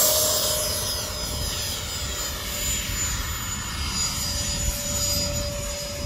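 Radio-control model Mirage delta-wing jet in flight, its motor a steady high whine with a hiss above it, falling off in loudness during the first second as the plane climbs away.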